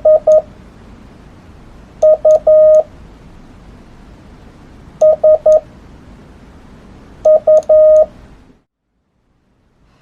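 Morse code sidetone from a CW paddle key: a steady mid-pitched beep sent in four short groups of dits and dahs, each under a second long and about two and a half seconds apart, with a faint click on each element. A low background hiss stops suddenly near the end.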